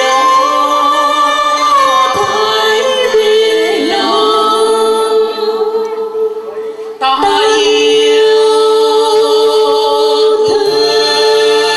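A man and a woman singing a duet into microphones over electronic keyboard accompaniment. The music thins out for a few seconds around the middle and comes back in suddenly about seven seconds in.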